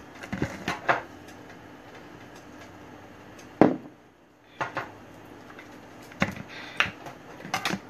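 Kitchen handling noises: a few scattered knocks and clicks as an onion is handled in a bowl, the loudest about three and a half seconds in, over a low steady hum.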